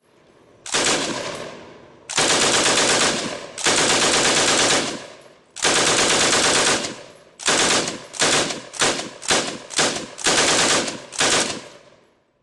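Pan-fed Lewis machine gun firing full-auto on a range: four long bursts of about a second each, then a quick string of about nine short bursts.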